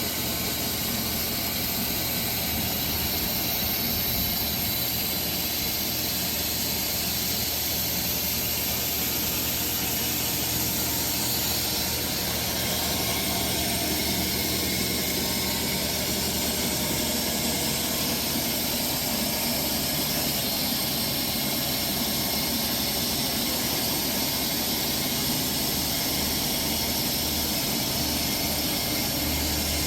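A sawmill running steadily as its blade cuts through a Bastogne walnut log: an engine hum under a strong, even high hiss.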